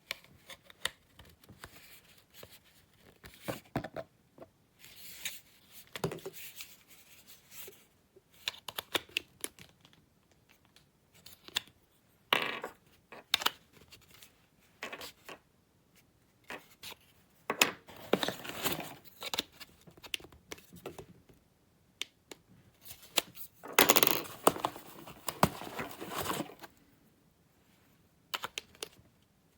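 Irregular handling noise with rustling, scraping and sharp clicks, as objects such as packaging and plastic parts are handled by hand. Louder bursts of rustling come about halfway through and near the end. No motor is running.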